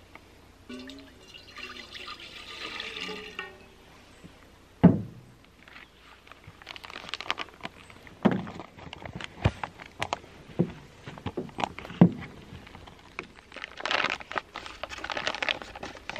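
Water pouring from a bottle into a metal camp pot for about three seconds, then a loud clunk and a run of knocks, taps and rustles as the metal cookware is handled and set on a small wood-burning stove.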